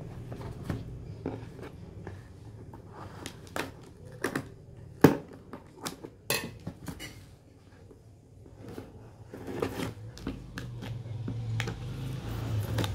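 Scissors cutting the packing tape on a cardboard box, with irregular knocks and clicks as the box and scissors are handled on a glass tabletop, the loudest knock about five seconds in. A low steady hum runs underneath and grows louder near the end.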